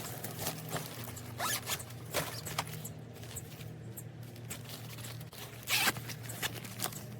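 Zippers on a fabric-lined suitcase set being pulled in several short rasping strokes, the loudest near the end.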